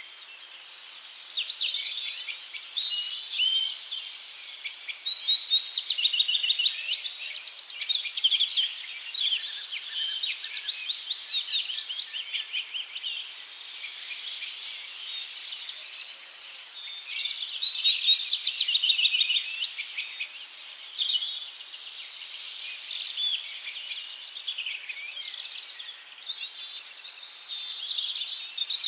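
A chorus of small songbirds chirping and trilling, many quick calls overlapping without pause, high-pitched, swelling louder twice.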